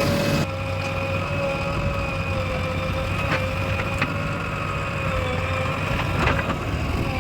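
Heavy machine's diesel engine running steadily, with a few sharp knocks or clunks from the work.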